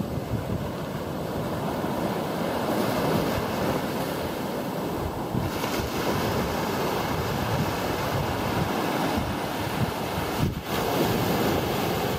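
Small waves breaking and washing up over a sandy beach, a steady surging wash, with wind buffeting the microphone.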